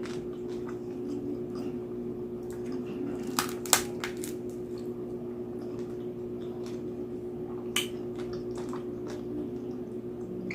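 Close-up chewing and crunching of crisp roasted pig skin from a lechon head, with scattered small crackles and a few sharp cracks, the loudest a little under four seconds in, over a steady low hum.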